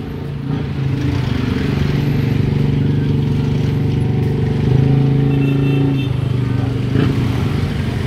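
Road traffic passing at close range: the engines of a light truck and motorcycles run with a steady low hum that grows louder for a moment about five seconds in. A short knock comes near the end.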